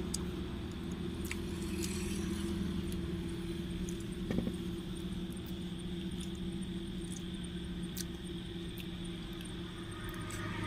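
Steady low engine hum at a constant pitch, with a few faint clicks and a light knock about four seconds in.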